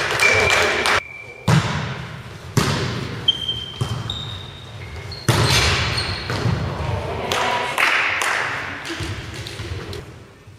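Volleyball rally in a large sports hall: several sharp hits on the ball that echo around the hall, with players' voices calling and short squeaks of shoes on the court floor.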